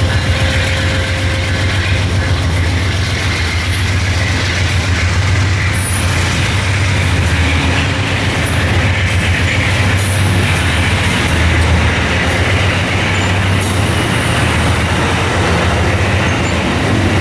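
A diesel-hauled train running past: a steady low locomotive engine hum under continuous wheel and rail rumble.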